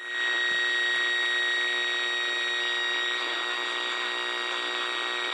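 AM radio static: a steady hiss with a thin, steady high whistle running through it, the sound of a receiver between or on a weak station.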